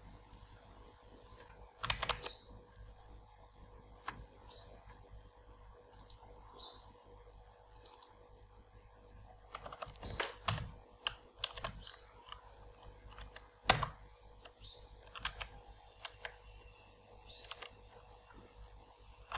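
Computer keyboard typing in irregular short runs of keystrokes with pauses between them, with one sharper, louder key strike about two-thirds of the way through.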